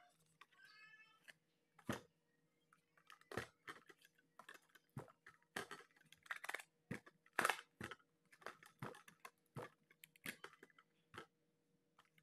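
Small hard plastic boxes being handled, picked up and set down: a run of sharp clicks and knocks, with a short high pitched squeak about half a second in.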